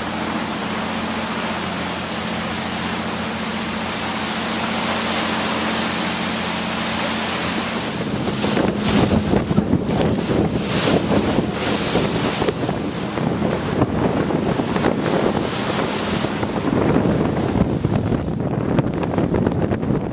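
A motor boat under way: a steady low engine hum under the rush of water. About eight seconds in, gusty wind starts buffeting the microphone and covers most of the rest.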